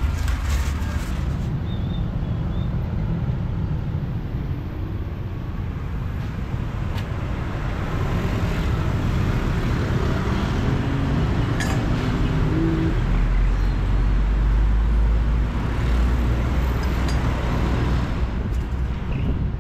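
Street traffic noise from passing cars and motorbikes. About two-thirds of the way through, a heavier vehicle's low engine sound comes in and grows louder. There is a single sharp knock near the middle.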